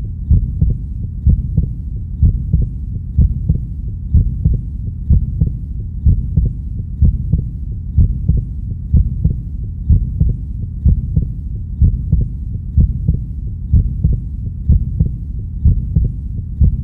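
Heartbeat sound: a steady, even rhythm of low lub-dub thumps, about one beat a second, over a constant low hum.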